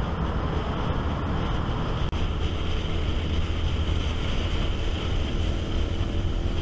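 Honda VTR1000 V-twin motorcycle engine running at road speed under a steady rush of wind noise. There is a momentary break about two seconds in.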